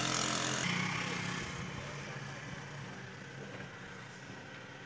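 A motor vehicle engine running, with a loud rushing noise that cuts off abruptly in the first second, then the sound fading steadily over the next few seconds.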